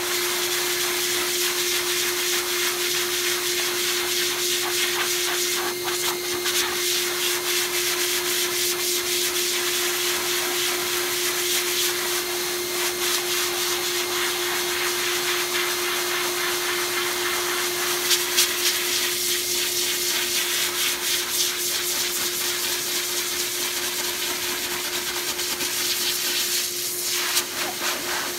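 Metro Vac Master Blaster 8 HP pet blower running steadily: a rush of air with a constant steady whine, used to blow the shedding undercoat out of a Siberian husky's coat.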